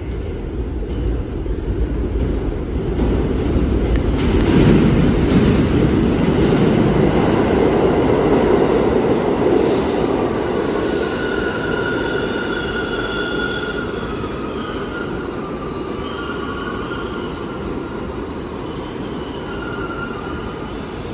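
Bombardier R62A subway train entering an underground station: the rumble of its wheels on the track builds and gets loud, then, from about halfway through, high steel-wheel squeals join in as the train slows and the rumble eases off.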